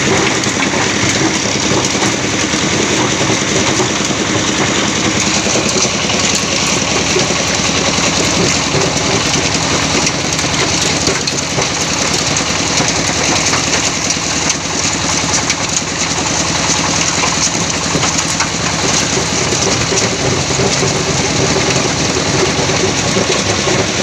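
Plastic waste sorting machine running steadily: a constant loud mechanical drone with a dense, even rattle.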